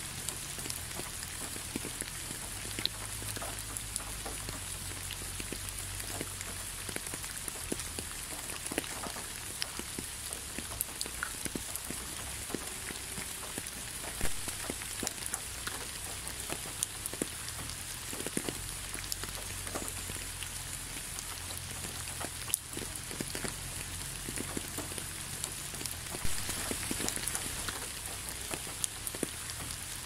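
Steady rain falling, a continuous hiss with many separate drops ticking close by.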